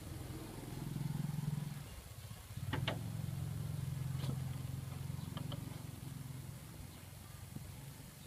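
A low, steady engine hum that swells and fades over several seconds, with a few light clicks of a plastic bottle cap being handled.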